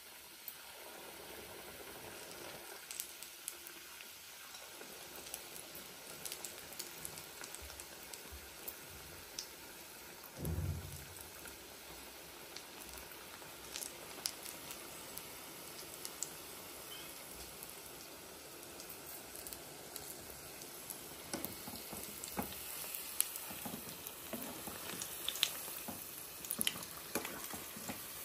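Batter-coated raw banana slices deep-frying in hot oil: a steady sizzle with frequent pops and crackles, which grow more frequent near the end. A single dull thump about ten seconds in.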